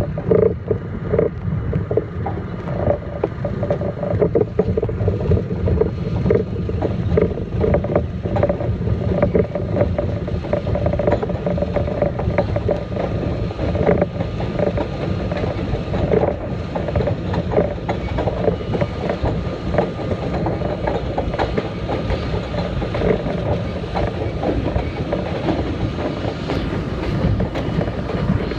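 R32 subway car running along elevated track, heard from the front window: a steady rumble of wheels and running gear with frequent clacks as the wheels pass over the rail.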